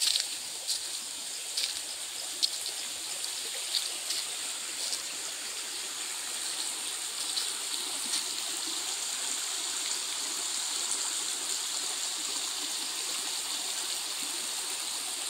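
A shallow, rocky forest stream trickling over stones, slowly growing louder. Footsteps crunch on dry leaf litter in the first few seconds, over a steady high hiss.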